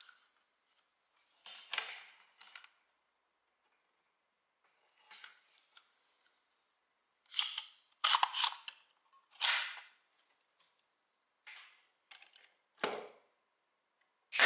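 Parkside PDT 40 G5 pneumatic stapler firing about ten times at uneven intervals, each shot a sharp pop with a brief hiss, the shots louder in the second half.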